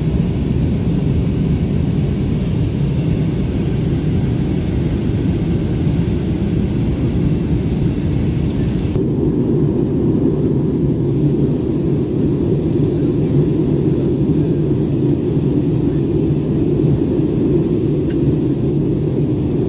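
Jet airliner cabin noise at a window seat: a steady low rumble of engines and airflow. About nine seconds in, the higher hiss above it drops away suddenly while the rumble goes on.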